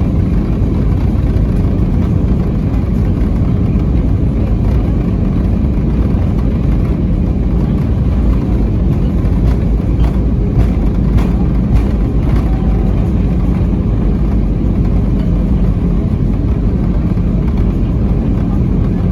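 Aircraft landing noise: a loud, steady low rumble, with a few light ticks a little past halfway.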